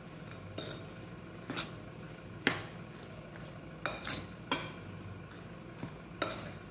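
Metal spoon stirring spiced chicken pieces in a glass bowl, knocking against the glass in about seven irregular clinks, the loudest about halfway through.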